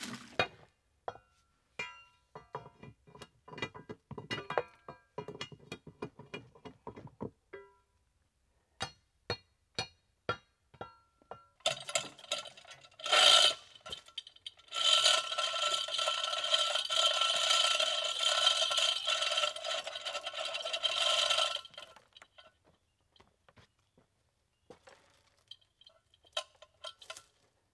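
Background music: light plucked notes, then a louder sustained passage from about 15 to 21 seconds in.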